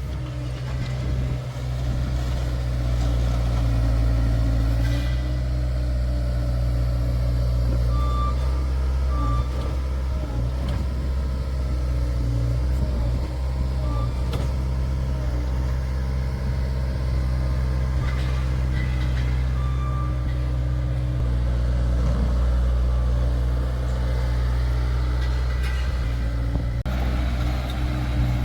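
Bobcat S450 skid-steer loader's diesel engine running steadily under work, with its backup alarm giving short beeps now and then as it reverses.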